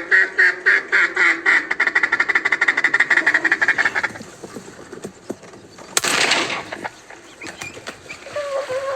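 A fast, even run of duck quacks, about five or six a second, that stops about four seconds in. About six seconds in there is one sharp burst that spreads across the whole range.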